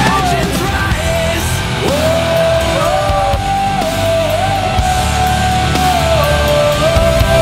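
Heavy rock music with a sung lead line holding long notes that slide between pitches over a steady, loud band.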